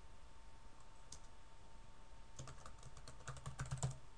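Faint typing on a computer keyboard: a single keystroke about a second in, then a quick run of keystrokes in the second half.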